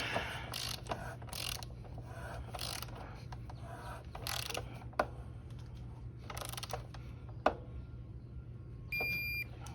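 Digital torque wrench ratcheting in short, irregular strokes as the rear axle bolt is tightened, then a short electronic beep near the end signalling that the 75 ft-lb set torque has been reached.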